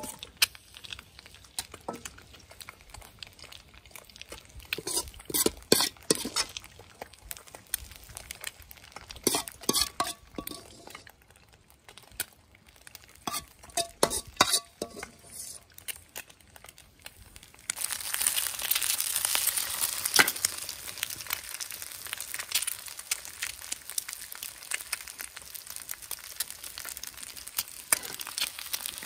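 A utensil stirring and scraping food in a metal frying pan, with scattered clinks. About 18 seconds in, a steady sizzle of frying in hot oil starts suddenly and keeps going.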